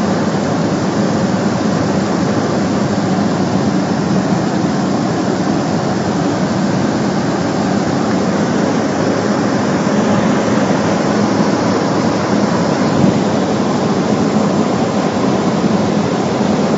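Steady drone of a Cessna 208B Caravan's single turboprop engine and propeller in flight, heard inside the cockpit: a constant low hum under a loud rush of engine and air noise.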